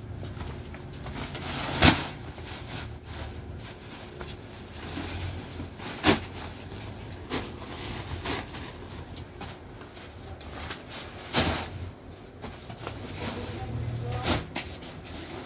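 Heavy filled sacks dropped onto a stack of sacks. Each lands with a sharp thud, four loud ones a few seconds apart and a couple of softer ones, over a low steady rumble.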